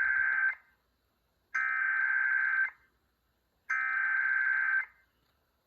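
Emergency Alert System SAME header: three bursts of buzzy digital data tones, each about a second long with about a second's silence between them, the first already under way. The header marks the start of a new alert, here a weather warning.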